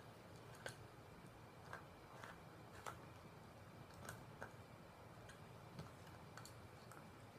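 Poodle gnawing a Korean beef (hanwoo) bone: faint, irregular clicks and cracks of teeth on bone, about ten scattered through a few seconds of near silence.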